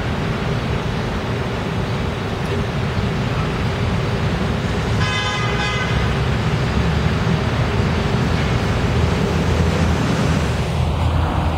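City street traffic with a city bus's diesel engine rumbling closer, its low rumble growing in the second half. A vehicle horn honks briefly about five seconds in.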